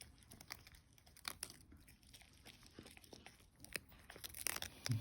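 A Maltese dog chewing and tearing at food: faint, scattered crunching and crackling clicks, with a louder flurry near the end.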